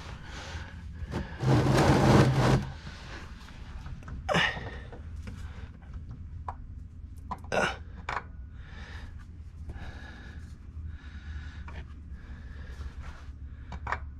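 A man's loud, strained breath or grunt about a second and a half in, then a few light knocks and clicks as he works a part into place by hand under the truck.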